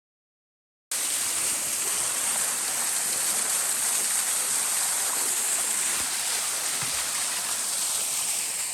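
Waterfall of a takigyō (waterfall-training) site pouring steadily, an unbroken rush of falling water. It cuts in abruptly about a second in, after a moment of silence.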